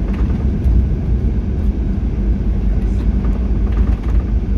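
Cabin noise inside a Boeing 737 airliner on the ground after landing: a loud, steady low rumble of engines, wheels and airframe.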